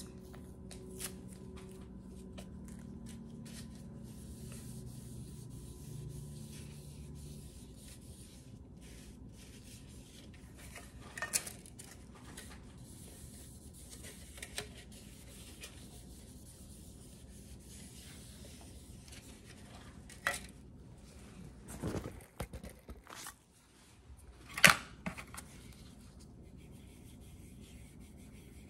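Alcohol prep pad packets being torn open and the pads rubbed over a plastic weighing boat and a digital scale: soft rustling, crinkling and wiping, with a few sharper knocks as things are handled, the loudest near the end.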